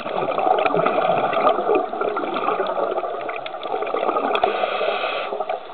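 Scuba diver's exhaled bubbles gurgling out of the regulator underwater in one long rush, easing off near the end, with scattered small sharp clicks.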